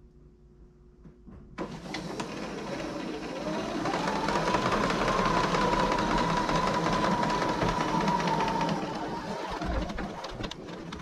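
Giraffe Tools Grand Falls pressure-washer hose reel retracting its 100 ft hose on its own: a fast clicking whir that starts about one and a half seconds in, rises in pitch and holds steady for several seconds, then slows near the end.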